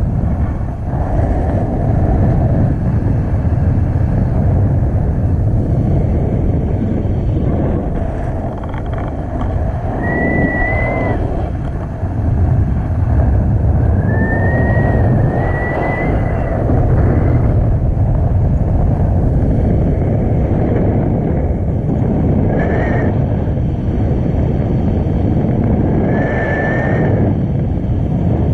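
Loud, steady wind rush buffeting the camera's microphone during a tandem paraglider flight. Short high whistle-like tones come and go a few times.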